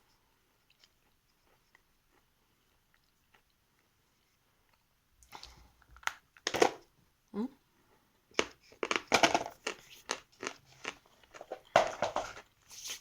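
Hard edible lump chalk (Sever) being bitten and chewed close to the microphone: irregular sharp crunches, starting about five seconds in.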